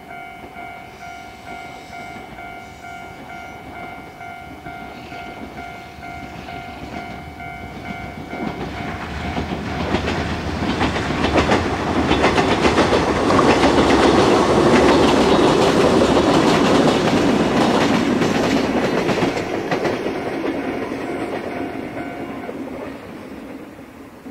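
A Yoro Railway electric train approaching and passing, wheels clicking over the rail joints, loudest midway and fading near the end. A level-crossing warning bell rings in a steady pulse, about twice a second, and stops shortly before the end.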